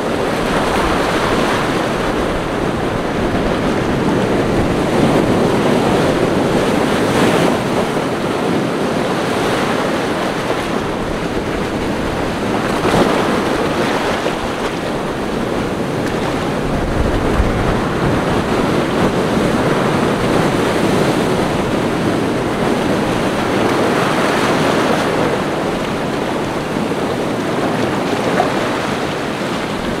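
Ocean surf breaking and washing ashore: a continuous rush of waves that swells and eases every several seconds, with wind buffeting the microphone in brief low rumbles.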